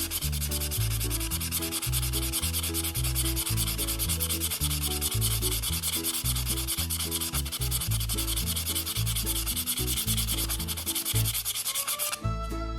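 Wet sandpaper rubbed rapidly back and forth along a pocketknife blade, hand-polishing the steel at a high grit; the strokes stop near the end. Background music with a bass line plays underneath.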